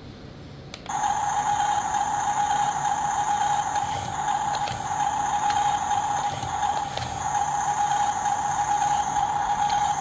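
Small electric motor and gearbox of a toy RC bulldozer whining at a steady pitch. It starts abruptly about a second in and runs on without a break.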